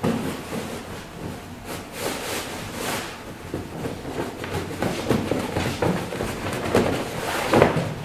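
A fabric filter bag being handled and emptied: irregular rustling as the compressed textile fibres slide and tumble out, with a few soft knocks. The loudest knock comes near the end.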